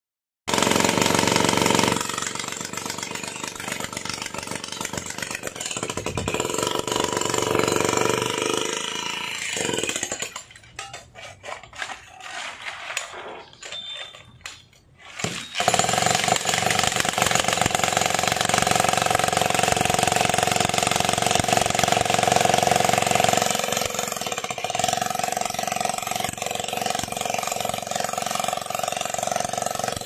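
Handheld electric demolition hammer running, chiselling into concrete with a steady rapid rattle. It stops for about five seconds a third of the way in, leaving scattered knocks, then runs again.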